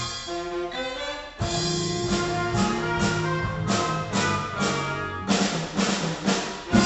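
School jazz band playing: saxophones and trumpets over drum kit, electric bass and keyboard, with steady accented drum hits. It closes on a loud final hit near the end.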